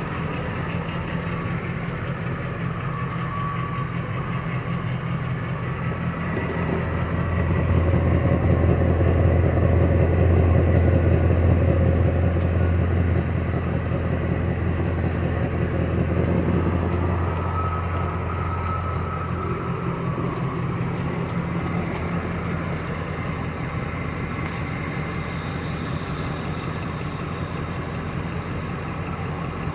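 2005 Dodge Ram 1500's engine idling steadily through straight pipes fitted in place of its catalytic converters. The pipe joints have been sealed with exhaust repair putty, which the owner says has sealed them up. The engine note grows louder for several seconds about a quarter of the way in, and briefly again a little past halfway.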